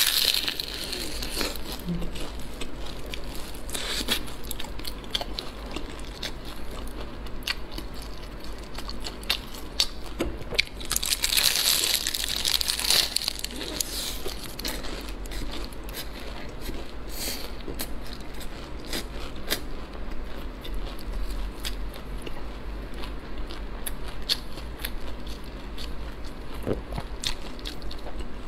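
Close-up eating sounds: crunchy bites into a crisp, flaky pastry bun filled with shredded potato and green-pepper pork, and chewing, with many small crackles as the crust flakes. The loudest crunching comes right at the start and again about eleven to thirteen seconds in.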